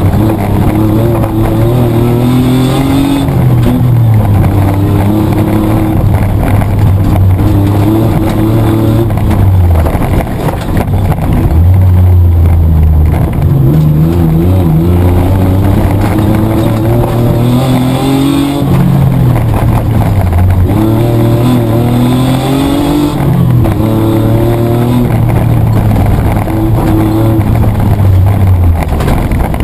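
Mitsubishi Triton's petrol engine heard from inside the cab, driven hard at racing pace: the engine note climbs steadily, drops back, and climbs again about five times, as it comes off and back on the throttle or changes gear.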